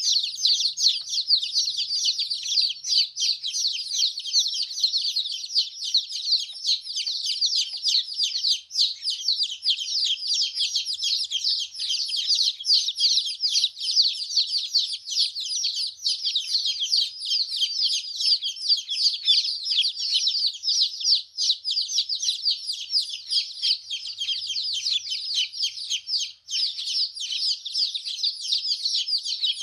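Many baby chicks peeping constantly, their high, short chirps overlapping without a break.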